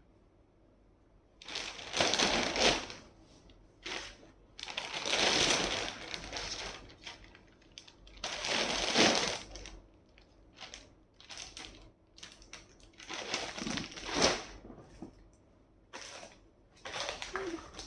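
Clothes being handled, rustling and crinkling in several separate bursts of a second or two.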